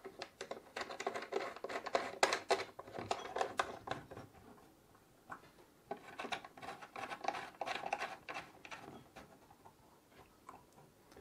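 Cooler mounting screws with black plastic sleeves being turned in by hand into an AM4 motherboard backplate: quick little clicks and scratches of plastic and metal. They come in two spells and thin out near the end.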